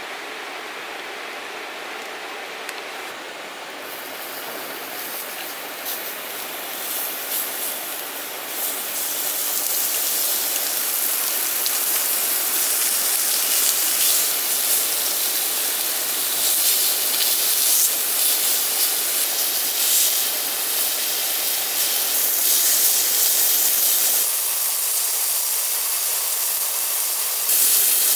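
Pork slices sizzling on a hot black stone grill plate: a steady hiss that grows louder a few seconds in as the meat goes onto the stone.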